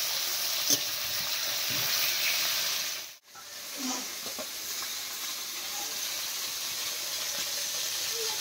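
Fish pieces sizzling as they fry in hot oil in a metal kadai, with a few sharp knocks of a metal spatula against the pan. The sizzle drops out suddenly about three seconds in, then carries on steadily.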